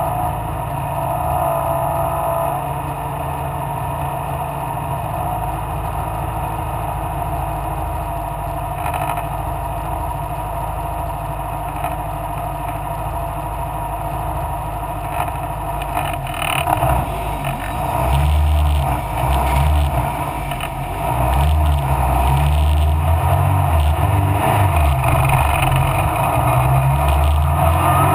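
Mallock Mk8B racing car's engine running hard under race conditions. It is steady at first, then louder and more uneven from just over halfway, with brief dips in the revs before it holds at the higher level.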